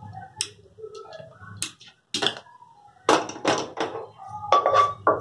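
Metal kitchen utensils clinking and knocking while boiled broccoli stems are strained out of their cooking water: a few light clicks, then a run of louder knocks in the second half, some ringing briefly.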